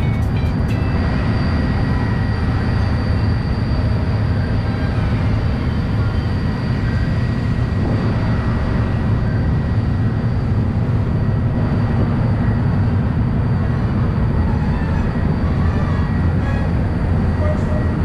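A ferry boat's engines running steadily under way, heard on board as an even low rumble with a faint, steady high whine over it.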